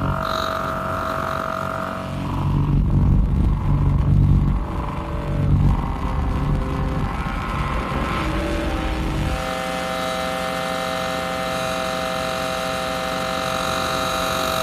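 Bass clarinet with two small microphones inside it, feeding back through nearby speakers and shaped by the keys. A held feedback tone gives way after about two seconds to a loud, rough low rumble that swells and falls, then about nine seconds in it settles into a steady chord of held tones.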